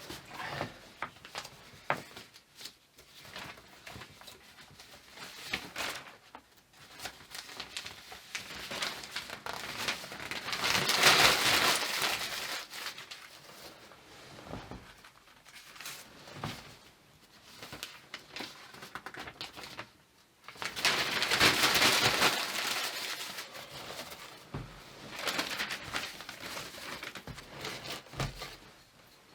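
Paper being crumpled by hand to lay a small fire, in two longer bouts about ten and twenty seconds in, with scattered small clicks and knocks of handling in between.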